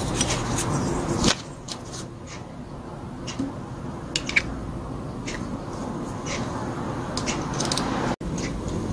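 Scattered light clicks and taps of small carburetor parts from a gas brush cutter being handled and fitted by hand. A low steady hum drops away about a second in.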